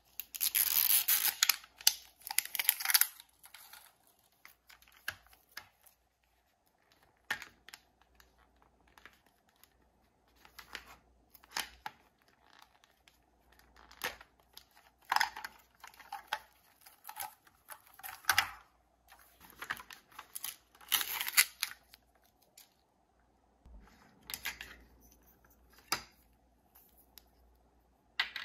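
Thin plastic wrap being peeled and torn off a plastic Mini Brands capsule by hand, crinkling in irregular short bursts with pauses between, along with occasional light clicks of the plastic capsule being handled.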